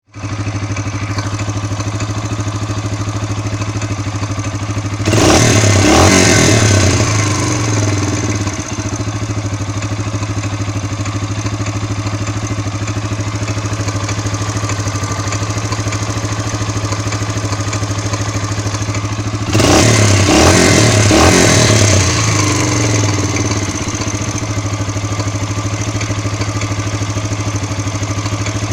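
BM 250's engine idling steadily and revved twice, each time rising and falling back to idle over about three seconds. It is running with a knock whose cause and location the owner cannot find.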